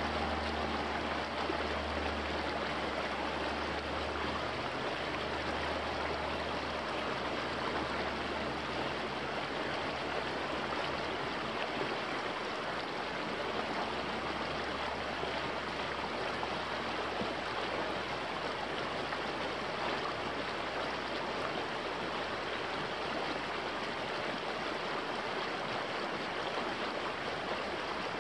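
Small creek running fast over rocks in a shallow riffle: a steady, even rush of water. A low drone underneath fades away in the first few seconds.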